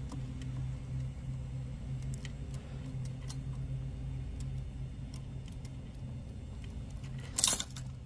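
Keys on a key ring clinking and jangling as a key is seated and tightened in a key cutting machine's clamp, with scattered faint clicks and one louder jangle about seven and a half seconds in. A steady low hum runs underneath.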